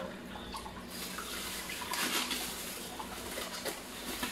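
Tap water running into a sink as fruit is rinsed under it by hand, one piece at a time; the water sound gets stronger about a second in.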